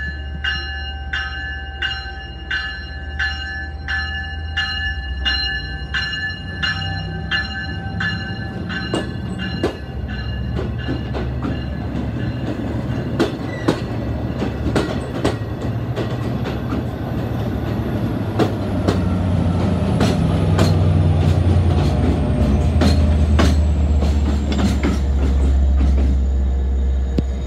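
Long Island Rail Road bi-level push-pull train passing: a bell rings steadily, about three strokes every two seconds, until about nine seconds in, then the wheels click over the rail joints as the coaches roll by. The low rumble of the DE30AC diesel locomotive pushing at the rear grows louder in the second half.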